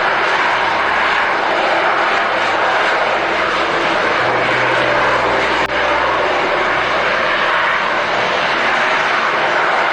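Jet fighter engines roaring: a loud, steady rushing noise that carries on without a break, with one brief click a little over halfway through.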